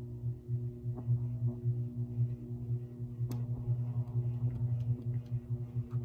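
Lasko Preferred Design and Light ceiling fan motor humming as it speeds up from a stop, a steady low electrical hum that pulses slightly. There is one sharp click about three seconds in and a few lighter ticks near the end.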